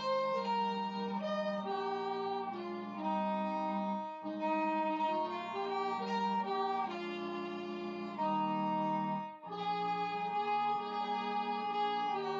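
Violin and alto saxophone playing a slow hymn together in held notes, several parts moving as chords, with short breaths between phrases about four and nine seconds in.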